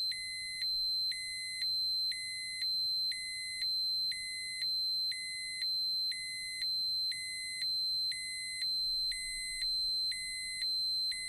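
Radiation dosimeter alarm sounding continuously. A steady high electronic tone runs throughout, and a lower beep switches on and off about once a second, giving an even, repeating warble.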